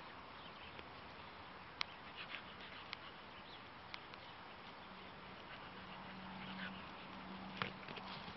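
Faint outdoor field ambience with birds chirping, broken by a few sharp knocks, the loudest right at the start and another late on. A low steady hum comes in about halfway through.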